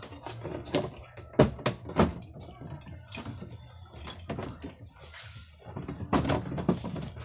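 The washing machine's plastic cabinet and base being handled and seated: a string of knocks, clicks and scrapes, with the sharpest knocks about one and a half and two seconds in and another cluster near the end.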